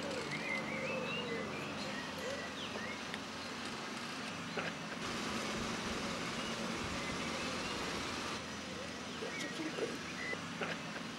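Small birds chirping now and then over a steady background hush, with a few faint clicks scattered through.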